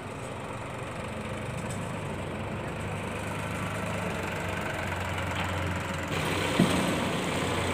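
Sonalika tractor's diesel engine running at low revs as it pulls a loaded trailer slowly past, growing gradually louder as it comes close. A short knock sounds about six and a half seconds in.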